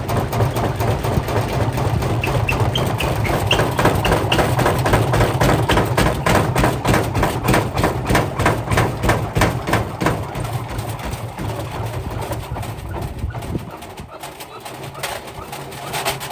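Whirlpool washing machine running with heavy bricks in its drum: a fast, regular series of loud knocks and bangs, about three a second, over the low hum of the motor, with a few short high squeaks a few seconds in. Near the end the motor hum drops away and the banging gets quieter.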